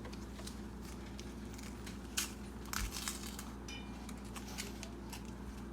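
Faint crinkling and scattered clicks of packaging being handled, over a steady low hum.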